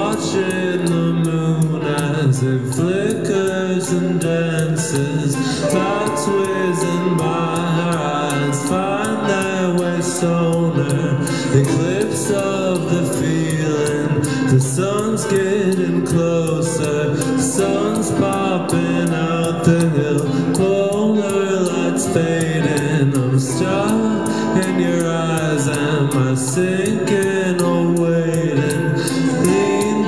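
Live band music with a male voice singing a melody over a steady beat.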